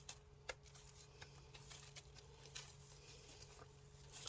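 Near silence: a few faint scattered clicks and scrapes of small handling noises over a low steady hum.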